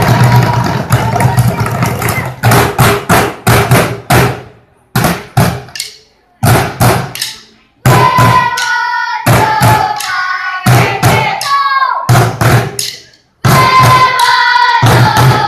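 Drumsticks beating black plastic barrels used as drums in a rhythmic group routine: a fast continuous run of hits at first, then bursts of loud strokes broken by sudden stops, three times cutting out completely. From about eight seconds in, voices call or sing over the drumming.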